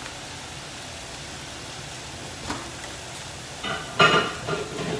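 Chicken frying in a pan under a grill press, a steady sizzle. A click partway through, then a few sharp clatters of kitchenware being handled near the end.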